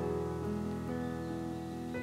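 Background music on a plucked guitar, its notes ringing on and overlapping.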